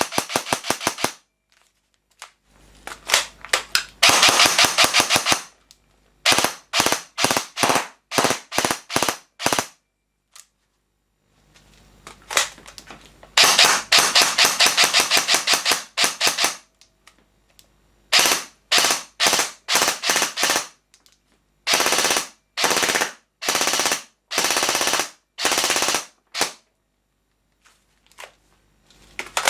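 ASG CZ Scorpion EVO 3 A1 airsoft electric gun (AEG) firing: rapid full-auto bursts, one lasting about three seconds, alternating with runs of separate single shots, with short pauses between strings.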